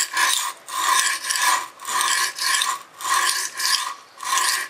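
Stainless-steel kitchen knife stroked back and forth on a coarse aluminium-oxide sharpening stone: a steady rhythm of gritty scraping strokes, about one a second. The heel half of the edge is being ground to raise a burr.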